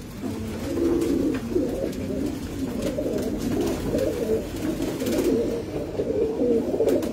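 Domestic pigeons in a loft cooing, many calls overlapping into a continuous chorus.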